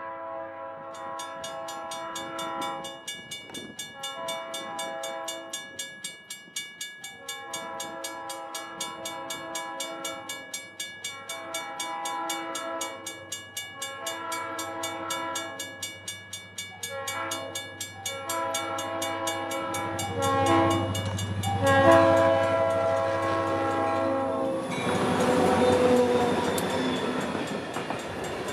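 Leslie RS3L three-chime horn on an EMD SD40 diesel locomotive blowing a long series of blasts for a grade crossing, while a crossing bell rings rapidly. Near the end the locomotive's engine rumble grows and it passes close with loud wheel and rail noise.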